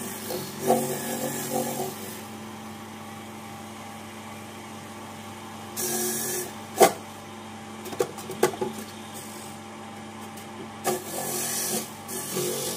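Small electric cassava grater running with a steady motor hum, with rasping bursts as cassava is pressed down onto the spinning grater: at the start, around six seconds and around eleven seconds. A sharp knock comes just before seven seconds, followed by a few light clicks.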